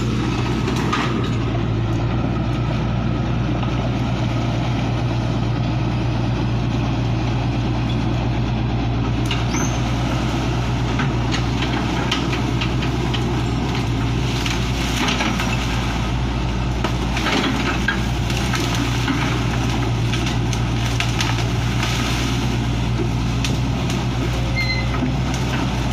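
Hitachi hydraulic excavator's diesel engine running steadily as the machine works, with scattered sharp cracks and knocks from its bucket and tracks working through branches and water.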